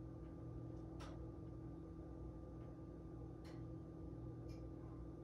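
Quiet room tone with a steady low electrical hum, broken by four faint, short clicks.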